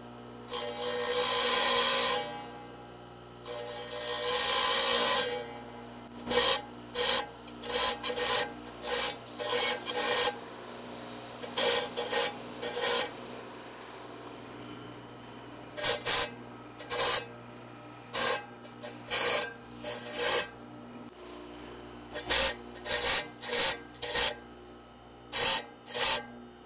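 Carbide teeth of a circular saw blade being ground one at a time against the side of a spinning diamond blade in a table saw, to sharpen them. Two longer grinding passes come first, then short grinding strokes about once a second, with a couple of brief pauses, over the steady hum of the saw's motor.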